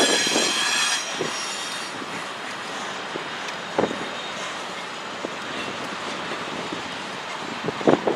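Freight train rolling past, its wheels squealing on the rails for about the first second, then a steady rolling rumble with a few sharp knocks, one about four seconds in and a cluster near the end.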